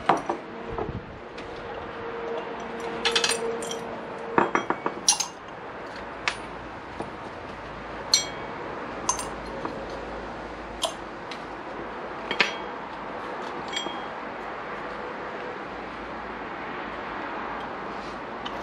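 Small carburettor screws, jets and parts clinking against small glass jars and the workbench as they are handled and dropped in. A run of clinks in the first few seconds, then single sharp clinks every second or two, dying away in the last few seconds.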